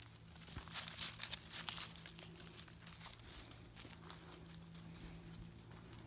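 Dry leaves and twigs rustling and crackling, with a cluster of crinkly crackles about a second in, then lighter scattered rustling.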